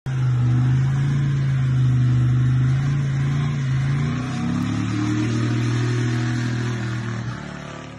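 A muscle car's engine held at high revs during a burnout, its rear tyres spinning in place. The engine note shifts down about four seconds in, and the sound fades out near the end.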